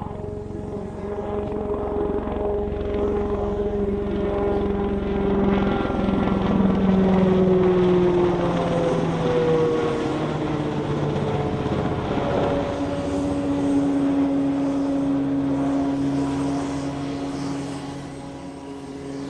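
Piasecki X-49A compound helicopter flying past fast in level flight: rotor and engine noise with several steady whining tones. The sound swells to its loudest about a third of the way in, and the tones drop in pitch as it passes before it fades near the end.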